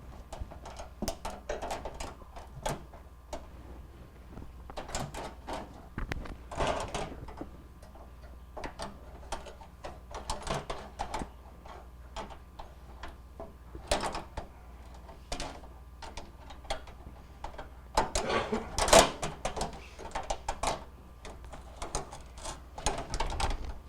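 Grease filters being slid and fitted back into the underside of an over-the-range microwave: scattered clicks, knocks and short scrapes of thin metal, with a louder clatter about three-quarters of the way through.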